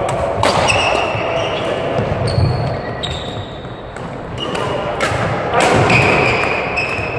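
Badminton doubles rally: rackets striking the shuttlecock several times, each a sharp crack, with court shoes squealing briefly on the sports-hall floor as players lunge and turn.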